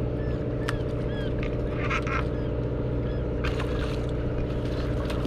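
Boat engine humming steadily, with a few short, harsh, nasal squawks from a seabird that has just had a fishing hook removed from its wing.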